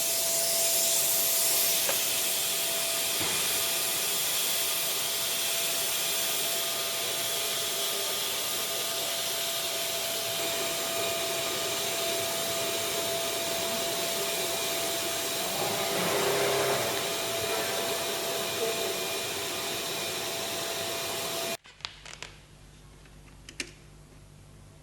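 Hot-air blower of a Leister Variant T1 overlap welding machine running with a steady hiss and a faint steady whine, then stopping abruptly near the end, leaving quiet room tone with a few small clicks.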